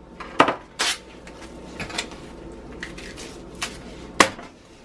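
Plastic film on a foam tray of raw chicken thighs being slit with a knife and peeled back: crackling, tearing plastic and handling of the tray, with several sharp clicks and taps, the loudest a little after four seconds in.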